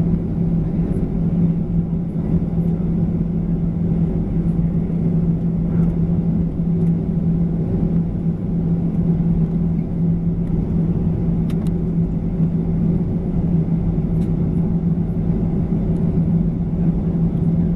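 Steady cabin noise of a Boeing 737-900ER, its CFM56-7B engines at idle while it lines up for take-off, dominated by a low hum that holds one pitch.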